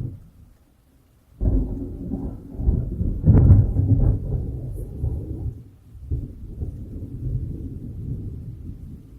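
Thunder: after a brief lull, a low rumble breaks in suddenly about a second and a half in. It peaks with a sharp crack about two seconds later, then rolls on unevenly and slowly fades.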